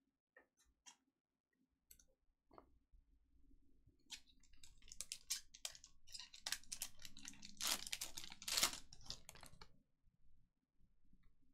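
Trading cards being handled: a few light clicks, then a dense run of crisp rustling and clicking from about four to ten seconds in, loudest near eight seconds.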